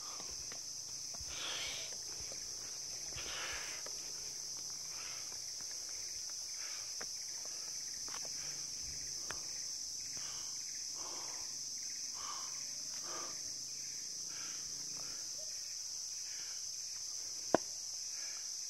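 Steady, high-pitched drone of forest insects throughout, with footsteps crunching through dry leaf litter every second or two. A single sharp click comes near the end.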